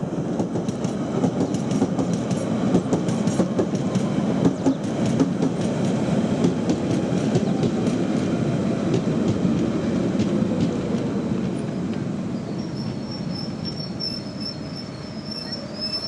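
London Underground Central line train running through the station with a steady clatter of wheels over rail joints and a whine that slowly falls in pitch as it slows. A high wheel or brake squeal joins about three-quarters of the way through.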